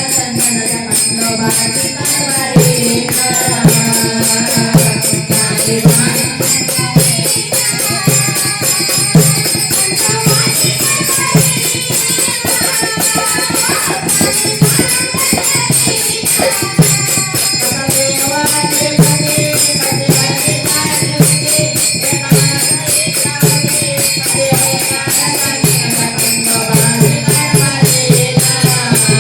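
Marathi devotional folk music: a fast, even beat of drums with jingling rattles, and a melody line above it, with no words sung.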